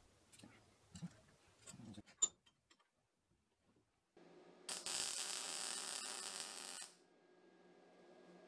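Small metal clicks as parts are set up in the vise, then a MIG welder humming steadily once it is switched on. A louder hiss lasting about two seconds rises over the hum.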